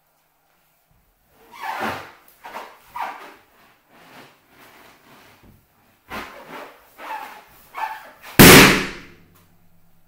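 A string of shorter scuffing and rubbing noises from handling a balloon, then one loud balloon pop a little past eight seconds in.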